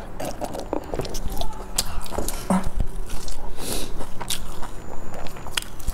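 Close-miked eating sounds: sips through a straw with mouth clicks and smacks, then a sesame-topped pan-fried flatbread torn apart by hand with a short crisp tearing noise partway through.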